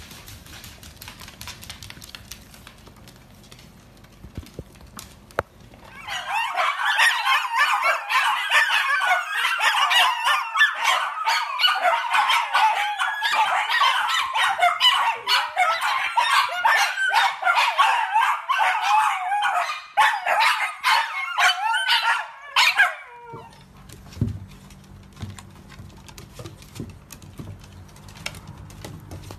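Several dachshunds yipping and howling together in a dense, loud chorus of wavering high calls that cuts off suddenly about three quarters of the way through.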